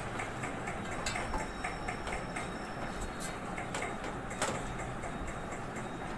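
A hand pressing and arranging marinated chicken pieces in a steel pot: soft, irregular small clicks and taps over a steady hiss, with a slightly louder click about four and a half seconds in.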